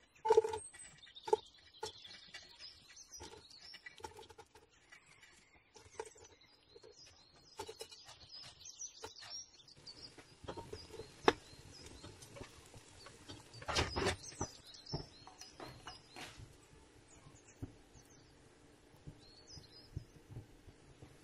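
A utensil knocking and scraping in a metal wok in several short clatters, with small birds chirping in the background. A faint steady hiss comes in about ten seconds in.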